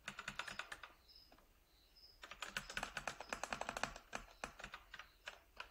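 Typing on a computer keyboard: a short run of key clicks, a pause of about a second, then a long fast run of keystrokes that thins out near the end.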